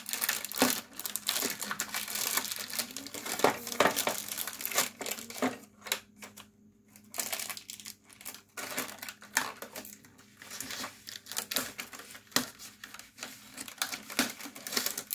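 Clear plastic wrapping crinkling and rustling in irregular crackles as it is handled on a plastic pencil box, with a quieter stretch about six to eight seconds in. Near the end, scissors cut into the plastic.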